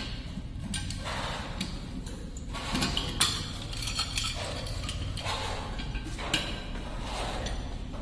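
Handling noise from fitting plastic inlet and plug parts to a ceramic toilet cistern: a few sharp clicks and knocks of plastic against ceramic, with soft rustling between them.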